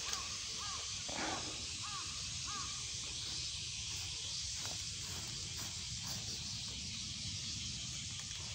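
A bird giving about five short cawing calls in the first three seconds, over a steady high-pitched drone of insects.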